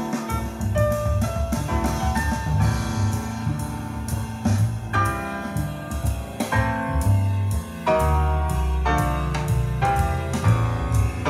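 Recorded music with piano, a strong bass line and drums, played back through a single-ended class A2 vacuum tube amplifier and Ruark Solstice speakers.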